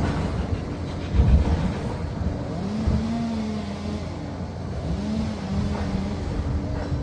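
Liebherr PR 746 crawler dozer's diesel engine running under load, with low knocks about a second in. Its pitch rises twice and then holds steady for a while.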